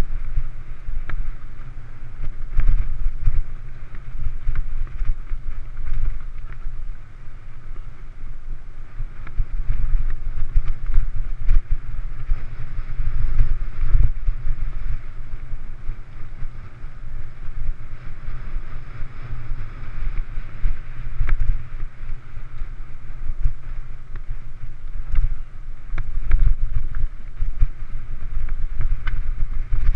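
Mountain bike riding fast over a dirt singletrack trail, heard through a GoPro's microphone: heavy, gusting wind rumble on the microphone, with tyre noise on the dirt and scattered knocks and rattles from bumps in the trail.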